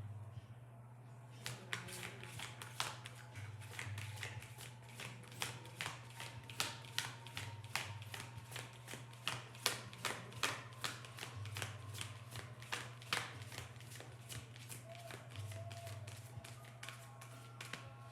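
A deck of chakra cards being shuffled by hand: a quick run of soft card slaps and clicks, several a second, over a steady low hum.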